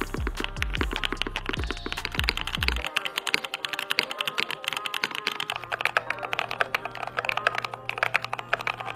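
Fast typing on custom mechanical keyboards with lubed switches, the board changing every few seconds: a Tofu60 aluminium case with NK Cream switches, an OG60 with Oil King switches, then a brass-plate GMMK Pro with Penguin switches. A dense run of keystroke clacks, over background music with a deep bass line.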